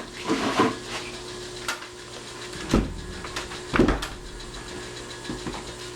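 A few dull knocks from a wooden door being worked on while a deadbolt is fitted, two stronger thuds about a second apart in the middle, over a faint steady hum.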